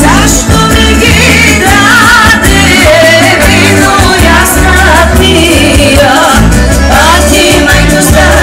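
Loud amplified live Bulgarian folk band: a sung, ornamented melody over drum kit, electric guitar, keyboard and a wind instrument, with a steady beat.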